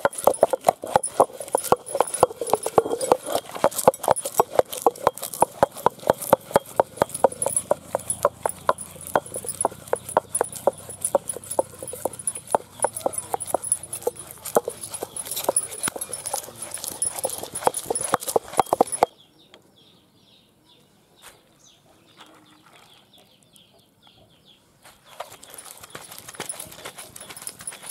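Hand-turned stone wet grinder (aattukal): the cylindrical stone roller turning in its stone basin, knocking rapidly and rhythmically as it crushes green chillies and garlic. The knocking stops about 19 seconds in and comes back softer near the end, with split chickpeas in the basin.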